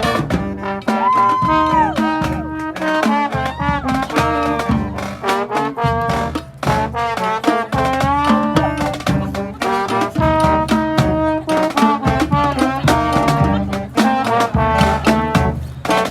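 Street brass band playing live: trumpets and trombones holding and sliding between notes over steady drum hits.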